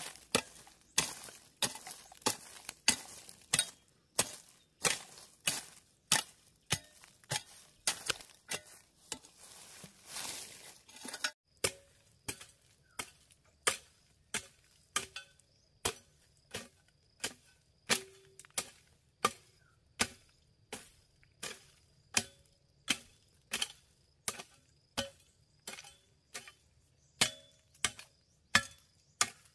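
Repeated chopping strikes, a blade hitting something hard about one and a half times a second in a steady rhythm. The strikes go on after an abrupt change in the background about a third of the way in.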